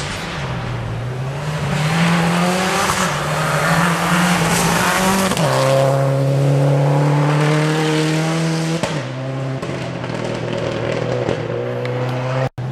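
Rally car at full throttle passing close by on a gravel stage, its engine note climbing, holding and stepping down sharply a few times, with a hiss of tyres on loose gravel. The sound cuts out abruptly near the end.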